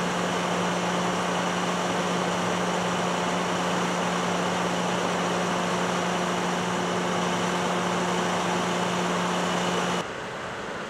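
Steady drone of running machinery with a constant low hum, which drops away suddenly near the end, leaving a quieter steady rumble.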